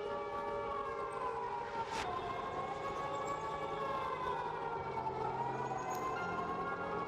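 Croatian civil defence warning siren sounding, its pitch sliding slowly down and back up in a long wail. There is a sharp click about two seconds in.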